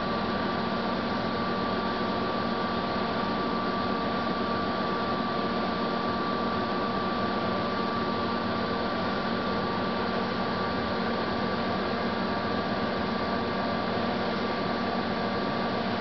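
Steady machine hum with a thin, faint high whine over a hiss, unchanging throughout.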